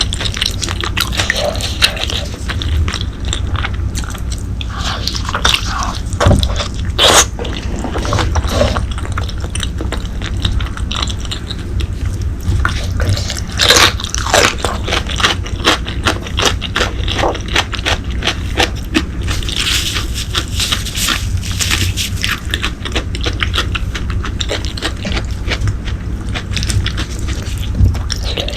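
Close-miked eating of braised pork leg: continual wet chewing and mouth clicks, with two sharper, louder bites or smacks about seven and fourteen seconds in.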